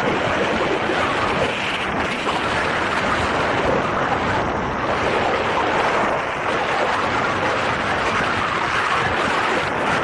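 Steady rush of wind over an action camera's microphone, from the airflow of a paraglider in flight.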